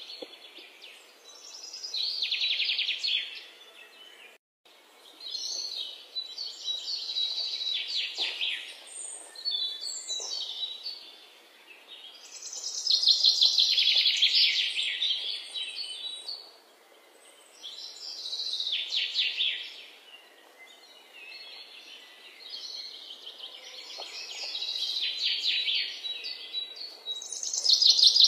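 Birds singing: rapid trilled phrases come and go every few seconds, with a brief break in the sound about four seconds in.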